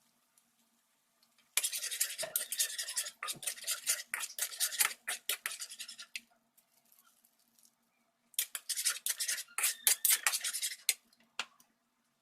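Kitchen utensil scraping and clattering against a pan or bowl in quick strokes, in two spells: one of about four seconds starting a second and a half in, then a shorter one about two and a half seconds later. A faint steady hum sits underneath.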